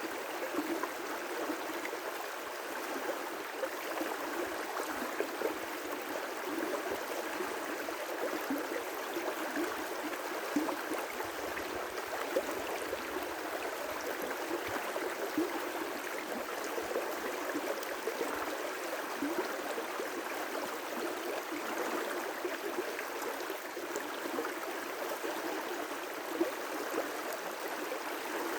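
River rapids: water rushing and splashing over rocks in a steady, continuous flow.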